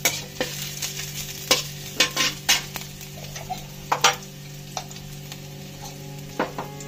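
A flat metal spatula stirring and scraping in a metal kadhai, knocking against the pan about eight times at uneven intervals. Chopped green chillies and garlic fry gently in ghee with a light sizzle, over a steady low hum.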